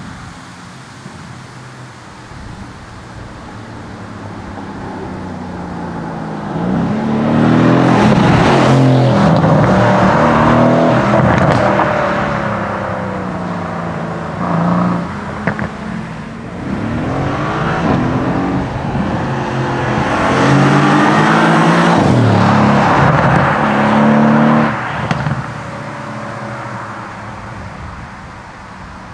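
Mercedes-AMG C63 S Estate's 4.0-litre twin-turbo V8 under hard acceleration twice, the engine note climbing and dropping back. The second run cuts off abruptly, and the sound then fades away.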